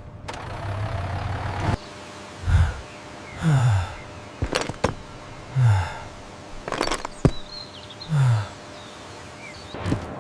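Truck engine sound effects: a low steady rumble for about two seconds, then four short engine notes that drop in pitch, with a few sharp clicks between them.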